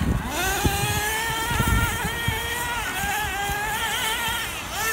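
Nitro RC truggy's small glow-fuel engine running at high revs, its pitch rising and dipping with the throttle as the truck speeds across gravel.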